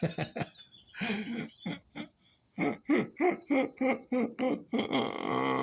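A person's voice making sounds without recognisable words: a run of quick, choppy syllables, then a long drawn-out call with a wavering pitch starting near the end.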